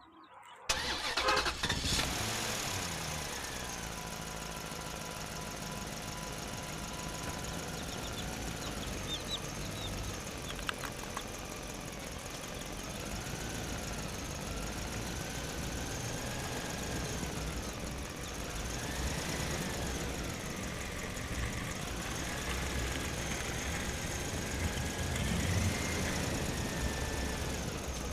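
An engine-like running sound starts abruptly about a second in and keeps going steadily, with a thin tone above it that slowly rises and falls.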